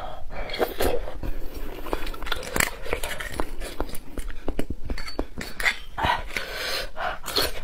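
Close-miked eating of beef bone marrow: irregular wet chewing and mouth clicks, with a metal spoon scraping and tapping inside the bone.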